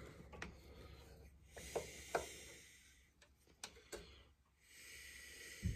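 Faint, scattered clicks and taps of a small tool and parts as a Homelite Super XL-923 chainsaw's trigger is worked on by hand, with a soft hiss twice in between. The trigger lock does not catch, and the trigger is thought to be worn out.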